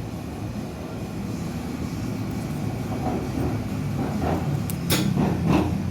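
A low, steady mechanical rumble that slowly grows louder, with a sharp click shortly before the end.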